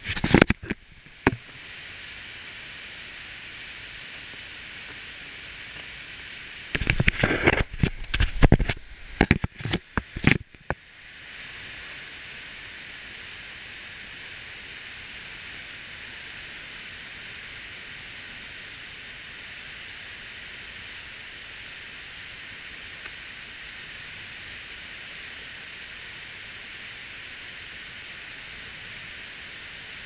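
Steady hissing rush of a waterfall heard from close by. Loud crackling bursts break over it in the first second and again from about 7 to 10 seconds in.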